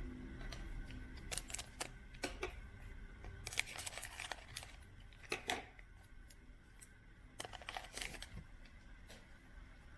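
Football trading cards being handled, flipped and slid one over another from a pack: faint, irregular flicks and scrapes.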